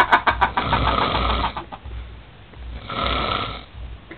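A sleeping man snoring with a fast rattle. One snore tails off about a second and a half in, and a second snore comes about three seconds in.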